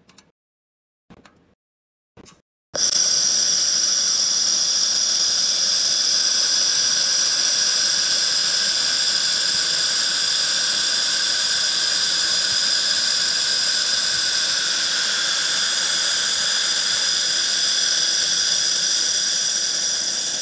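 Handheld laser welding gun running a bead along a sheet-steel corner seam: a loud, steady hiss with a high whine, starting abruptly about three seconds in and cutting off at the end. Three faint clicks come before it.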